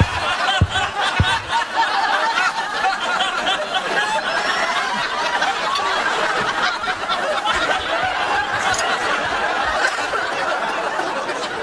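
Many people laughing and chuckling at once, the voices overlapping in a steady wash of laughter, with a couple of low thuds in the first second and a half.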